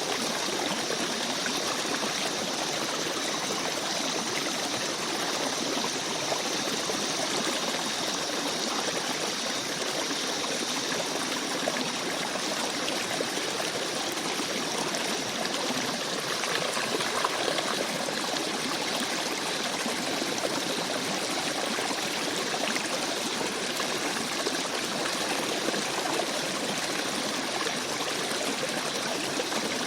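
A small stream or brook babbling and trickling steadily over rocks.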